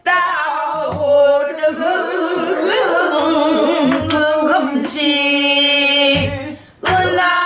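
A woman singing a Korean danga in the rough, strained pansori voice, drawing out long, wavering held notes, with a short break for breath near the end. A few low strokes on a buk barrel drum sound beneath the voice.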